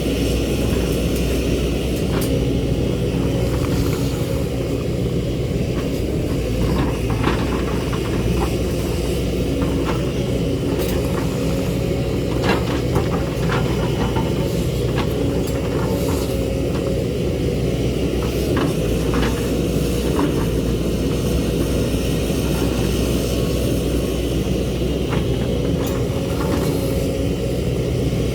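Excavator's diesel engine running steadily under load, with frequent short knocks and scrapes of the bucket against rock.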